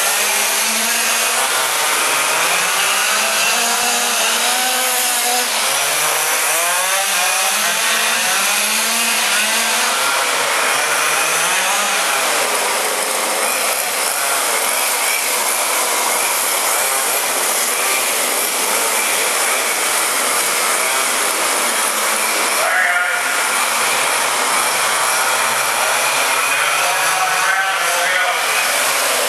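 Several quarter-scale RC sprint cars' small two-stroke gas engines running flat out together, a steady high buzz whose pitch keeps rising and falling as the cars rev, lift and go past.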